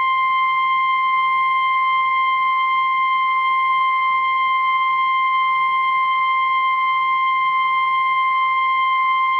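NOAA Weather Radio 1050 Hz warning alarm tone: a single steady, loud, high-pitched tone that comes on abruptly. It signals that an emergency alert message is about to be read, here a severe thunderstorm watch.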